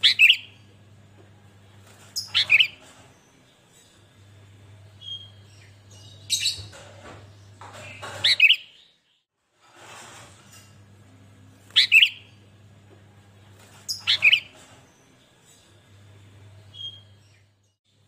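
Sooty-headed bulbul (kutilang) singing in short, loud phrases, about six of them, two to four seconds apart.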